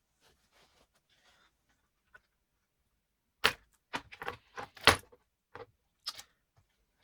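A quick run of sharp clicks and knocks, about eight of them between three and a half and six seconds in, from laptop parts and tools being handled during the work on the laptop.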